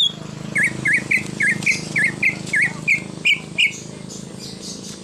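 Cucak ijo (green leafbird) singing a quick run of about a dozen short, bending chirps, about four a second, which stops a little over a second before the end.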